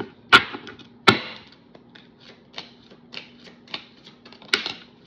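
A deck of tarot cards being shuffled by hand, the cards slapping together in a run of irregular clicks. Three sharper snaps come about a third of a second in, about a second in, and near the end.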